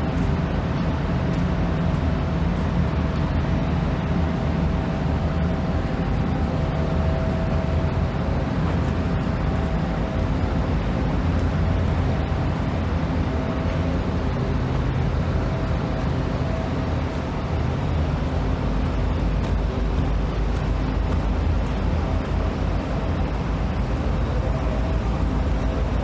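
Steady motor vehicle noise: a low engine and road rumble with a faint steady whine running through it.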